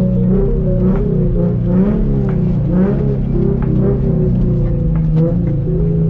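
Music with sustained low bass notes and a wavering melodic line above them, over a low car rumble.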